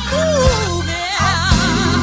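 A song used as background music: a singer's voice holding wavering, gliding notes over a steady drum and bass beat.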